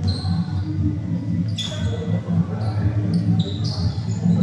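Basketball being dribbled on a hard court floor, repeated bounces, with a few short high squeaks and players' voices on the court.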